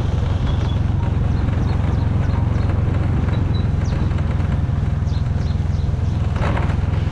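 Motorbike engine running at a steady speed on the move, a low even drone, over a steady rush of wind and tyre noise on a wet road in the rain.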